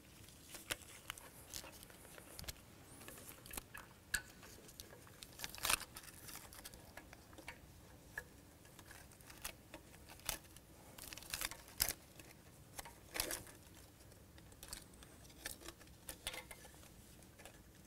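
Wiring harness and plastic clips on a planter row unit being handled and routed by gloved hands: faint, irregular small clicks and rustles, a few sharper clicks among them.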